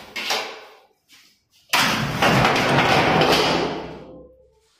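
A few short knocks at the start, then about two seconds in a sudden loud crash that lasts about two seconds and dies away: a worker falling during ceiling plastering work, with things coming down with him.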